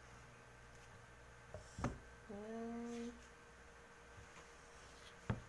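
A plastic food container being handled on a table: a sharp knock about two seconds in and another tap near the end. Right after the first knock a woman gives a short closed-mouth hum, under a second long.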